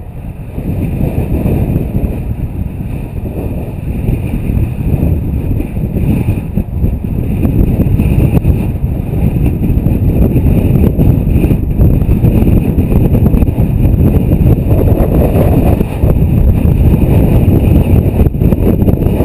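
Wind buffeting the microphone of a camera riding on a moving bicycle: a loud, low, rushing rumble that grows louder over the first half or so and then holds steady.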